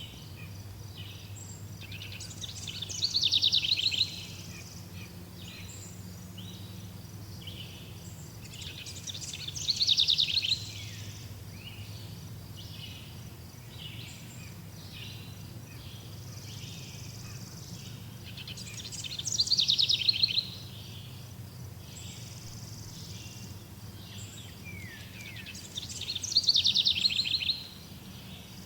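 Songbird singing a short, fast trilled phrase four times, about every seven seconds. Softer calls from other birds fill the gaps, over a low steady hum.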